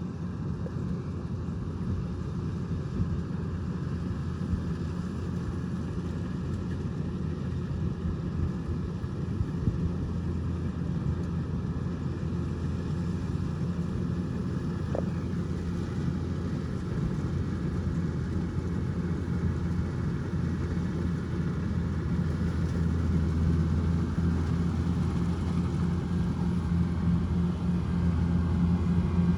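Kubota DC105X combine harvester's diesel engine running steadily under harvesting load with a low drone, growing gradually louder.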